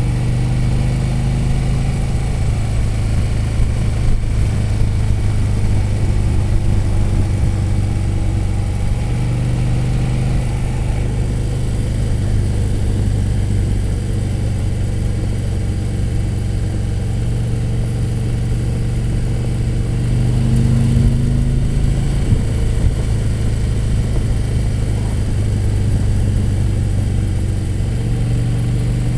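Motorcycle engine running at cruising speed, heard from the saddle behind the fairing, a steady low note that shifts slightly a few times with the throttle, over road and wind noise.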